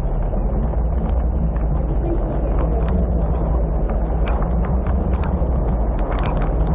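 Boat engine running steadily with a rushing noise over it, and many short sharp ticks scattered throughout.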